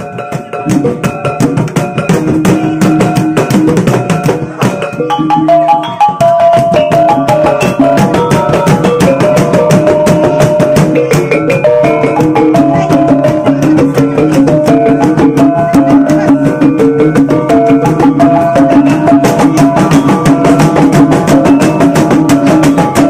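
Bajau bertitik ensemble: a kulintangan, a row of small bossed gongs struck with wooden beaters, plays a fast running melody over rapid, driving strokes on long double-headed wooden gendang drums, with low ringing tones beneath. The music starts abruptly and stays loud and dense throughout.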